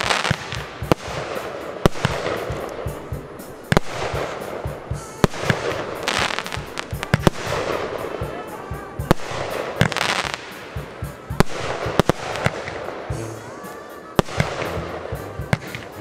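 Aerial firework shells launching and bursting in a display: a sharp bang every second or so, with a rushing hiss between the bangs.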